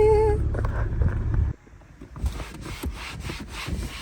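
A cloth wiping and scrubbing a car's dashboard in quick repeated strokes, about four or five a second, starting about two seconds in. Before that, a low car rumble cuts off abruptly.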